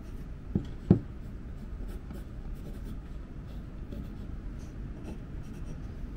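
Pencil scratching as it marks a line on a wooden ring-frame piece, with two knocks just under a second in, about a third of a second apart, the second the louder.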